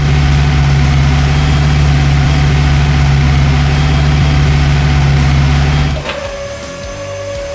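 Engine sound effect of a heavy vehicle idling: a loud, steady, low drone that stops about six seconds in, leaving a quieter steady tone.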